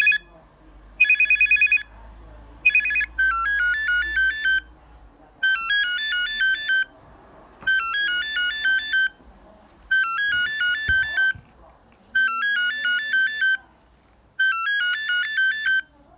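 Brondi DC2060 phone playing its ringtones: a trilling electronic ring in short bursts, then about three seconds in a different ringtone, a melody of quick high beeping notes in phrases about a second and a half long, repeating about every two seconds.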